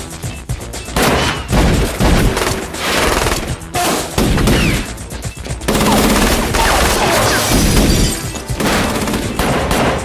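Heavy gunfire in repeated rapid volleys of shots from handguns, over loud action score music.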